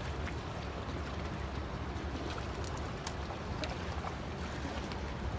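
Steady low rumble and hiss of flowing river water, with a few faint clicks.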